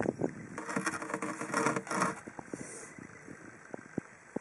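Bearded dragon biting and tugging at salad leaves: a sharp click, then about a second and a half of crackling and rustling leaves, then a few faint clicks.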